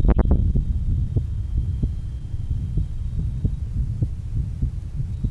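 Heart sounds recorded through a chest microphone at the aortic area of a patient with rheumatic heart disease (mitral stenosis and mitral insufficiency): a regular beat of short low thuds over a steady low hum, with a sharp click right at the start.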